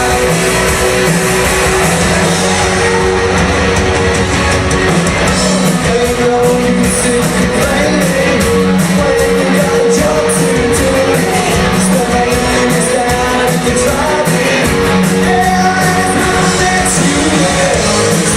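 A live rock covers band plays with electric guitar and drums and a singer over them, loud and steady throughout.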